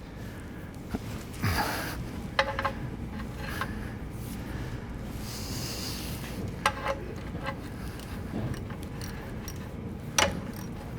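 Scattered light metal clinks and knocks with a brief scrape, from hand tools being handled while working under a tractor to get at its oil drain plugs.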